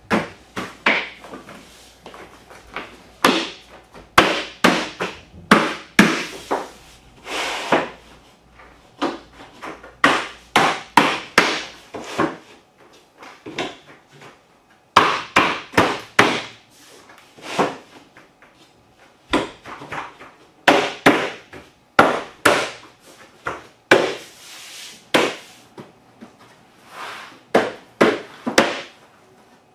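Drop-and-lock laminate planks being laid and knocked down into their locking joints: a long run of irregular, sharp wooden knocks and clacks, some in quick clusters.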